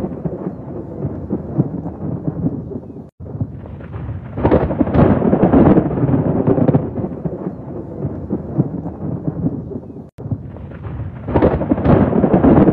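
Thunderstorm with a continuous rumble of thunder over rain. Two louder peals swell up, one about four seconds in and another near the end. The sound cuts out for an instant twice.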